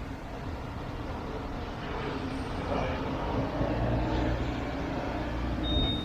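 Heritage tram running along its tracks: a low rumble that swells in the middle, with a brief high-pitched tone near the end.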